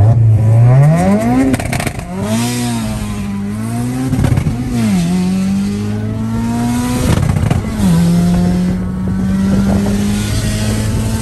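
Audi TT's built 1.8T turbocharged four-cylinder with a Garrett GTX3071R turbo, heard from inside the cabin under hard acceleration. The engine pitch climbs through the revs and drops suddenly at gear changes, twice, before climbing again.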